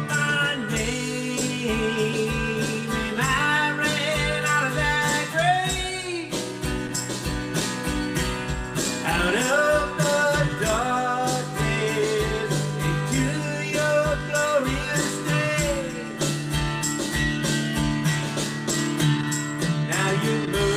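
A man singing a slow country-style song to his own acoustic guitar strumming, with steady, evenly spaced strums under the sung melody.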